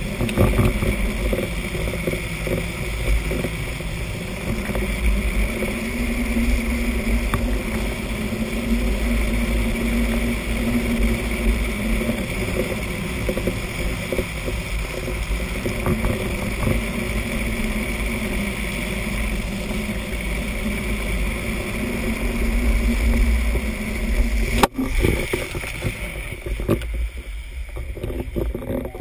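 Drift trike rolling fast downhill on asphalt: the wheels rumble on the road under steady wind buffeting on the microphone, with a brief break in the sound near the end.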